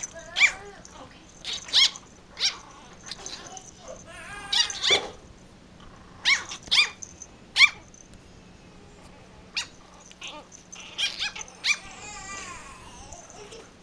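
Two Yorkshire terrier puppies play-fighting, letting out short high-pitched yips and little barks, a dozen or so scattered through, with a couple of longer bursts of growly yapping near the middle and near the end.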